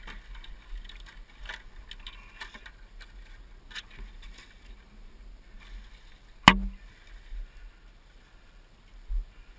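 Rustling riding gear and scattered clicks of handling close to a helmet-mounted camera, over a low rumble, with one sharp, loud knock about six and a half seconds in.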